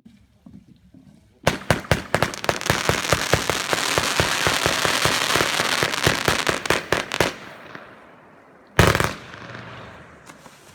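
Fireworks going off: a rapid string of firecracker cracks, many a second, starting about a second and a half in and thinning out after about six seconds, then one loud bang near the end.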